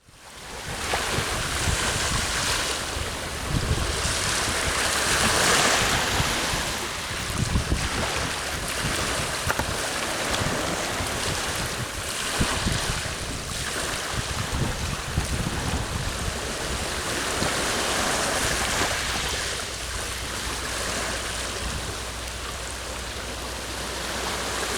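Sea waves washing onto the shore, the surf surging and easing every few seconds, with wind buffeting the microphone.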